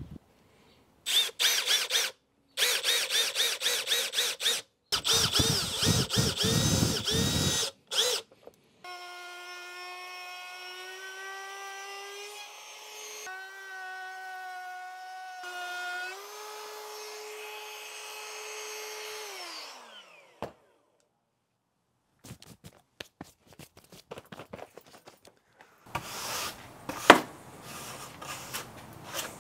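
Cordless drill-driver driving screws into plywood in several short bursts, then a trim router running steadily as it rounds over the plywood edge, winding down near the middle of the clip. Scattered taps and a brush sweeping sawdust off the board follow, with one sharp click.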